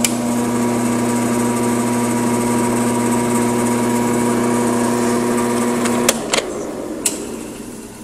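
Jet 15-inch floor drill press's half-horsepower motor running with a steady hum, then cut off about six seconds in with a few clicks, the sound dying away as it winds down. Its spindle wobbles when running, which the owners take for a bent spindle.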